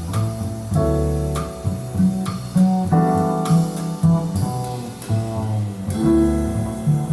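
Instrumental ending of a recorded song: acoustic guitar playing plucked notes and chords over a low bass line, with no voice.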